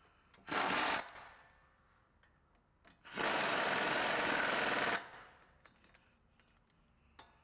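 Impact wrench running bolts in, in two bursts: a short one of about half a second, then a longer one of about two seconds.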